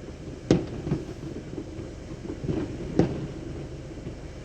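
Firework bangs heard from inside a car: two sharp bangs about half a second apart, then a fainter one and a louder one about two and a half seconds later.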